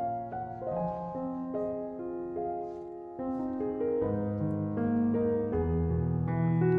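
Background piano music: slow, gentle melody of held notes, with deeper bass notes joining about four seconds in.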